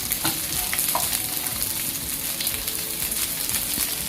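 Chicken pieces sizzling and crackling as they deep-fry in hot coconut oil, with a few short clicks as the pieces are lifted out with a spoon.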